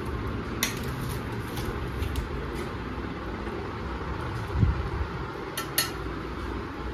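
Metal spoon clinking against a stainless steel plate and bowl, a few separate clinks with a close pair near the end, and a dull thump a little after halfway, over a steady low hum.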